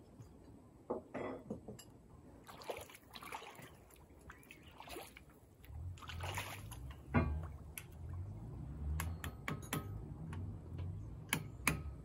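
Shallow river water splashing and sloshing in scattered bursts. From about six seconds in a low uneven rumble sets in, and a few sharp knocks come near the end.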